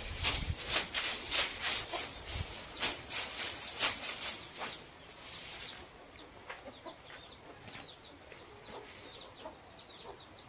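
Long grass broom swishing against a wall and rafters, sweeping off dust and cobwebs in quick strokes of about three a second. After about five seconds the sweeping stops and birds chirp repeatedly.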